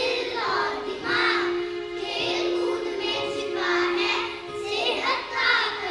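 A group of children singing a Hindi poem together over background music, with a steady held note beneath the voices.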